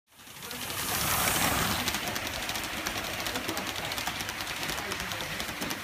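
Gauge 1 live-steam model train rolling past close by: the coaches' wheels running on the rails, a steady rushing noise with rapid fine clicking, loudest about a second in.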